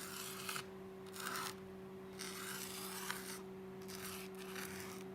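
A marker writing a word: a series of scratchy strokes, each lasting up to about a second, over a steady low electrical hum.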